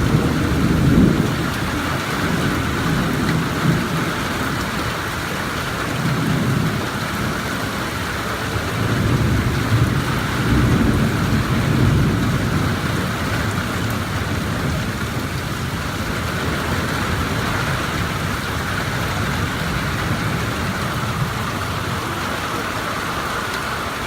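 Heavy rain falling steadily, with low thunder rumbling in swells during the first half.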